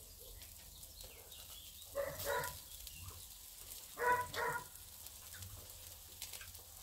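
A dog barking: two short pairs of barks about two seconds apart.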